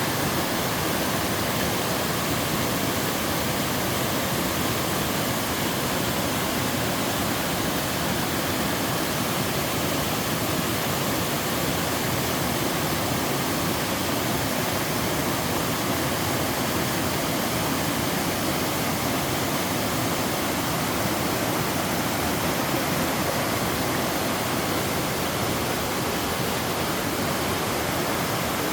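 Mountain-stream waterfall in two tiers, a pair of falls sliding down sloping rock, rushing steadily without a break.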